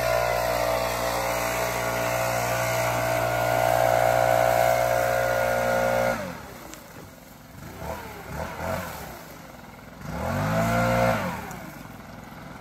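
Leaf blower running steadily at full throttle, then dropping abruptly to idle about six seconds in. It is then revved up and down in a few quick blips, with one longer rev near the end.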